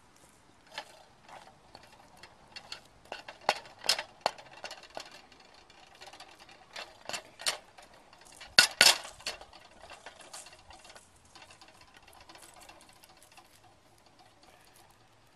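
A utensil scraping and clinking against a small metal pot as scrambled eggs are stirred, in irregular strokes, loudest about four seconds in and again near nine seconds.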